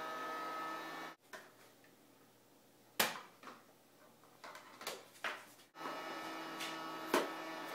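Battery-powered toy vacuum cleaner running with a steady electric hum. The hum cuts off about a second in, leaving a quiet stretch with a few light knocks, and comes back abruptly near the end.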